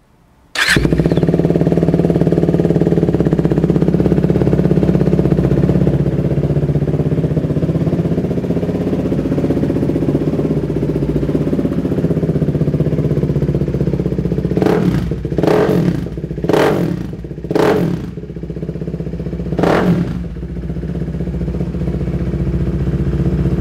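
A 2016 KTM RC 390's single-cylinder engine with an aftermarket full exhaust system starts about half a second in and settles into a steady idle. Past the middle it is blipped four times about a second apart, then once more, falling back to idle after each. The exhaust note is crisp.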